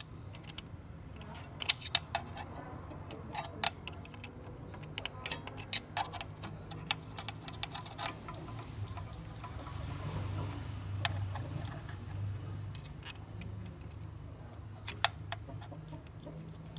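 Irregular sharp metallic clicks and clinks of an 8 mm combination wrench on the glow plug terminal nuts of a 4D56 diesel engine, as the glow plug wires are taken off, over a steady low hum.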